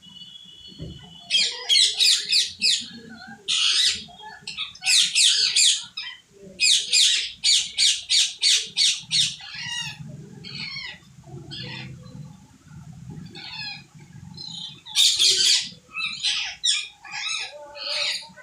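A group of parrots squawking: loud, harsh screeches in clusters, including a quick run of repeated squawks, about three a second, a third of the way in.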